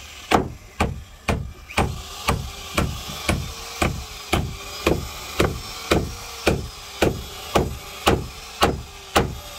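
Hammer blows on the wooden planking of a fishing boat being repaired, in a steady rhythm of about two strikes a second.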